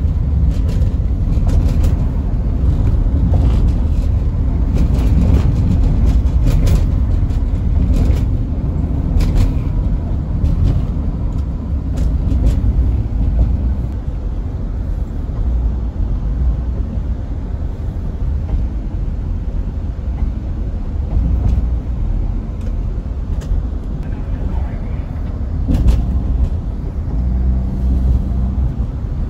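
Steady low rumble of a moving road vehicle heard from inside, with scattered sharp rattles and knocks, and a low steady hum coming in near the end.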